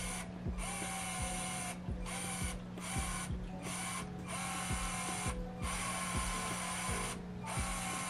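LEGO MINDSTORMS Robot Inventor electric motor whirring as it turns a small arm on an axle, running in bursts with about seven short breaks as it is started, stopped and reversed from a D-pad.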